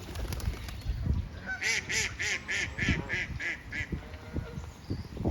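Geese honking, several calls in quick succession, with a fast, evenly spaced run of about eight higher-pitched calls through the middle.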